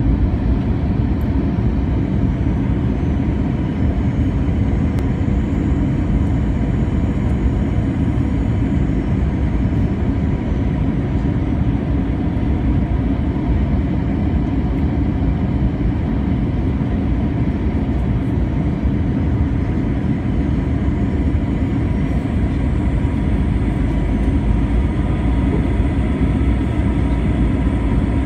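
Steady jet engine and rushing-air noise inside an airliner cabin during the descent to land, with a faint steady tone on top.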